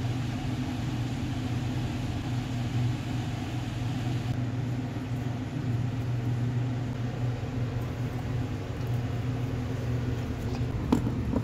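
Steady low machine hum with a few evenly spaced overtones, like a motor running, and one sharp knock near the end.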